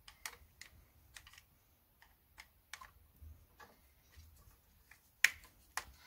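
Quiet, irregular small clicks and ticks of an insulated screwdriver working a terminal screw on a plastic DIN-rail doorbell transformer, with two sharper clicks near the end.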